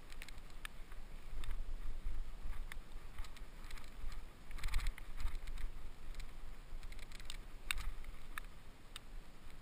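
Mountain bike riding fast down a dirt forest trail: a steady low rumble of tyres and wind on the microphone, with scattered sharp clicks and rattles from the bike over bumps and a longer rattling scrub about halfway through.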